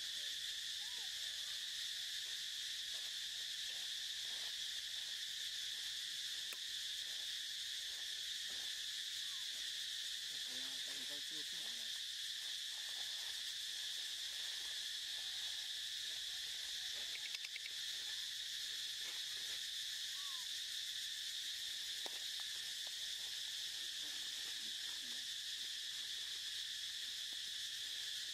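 Steady chorus of insects: a continuous high-pitched buzz that never changes, with faint short chirps scattered beneath it.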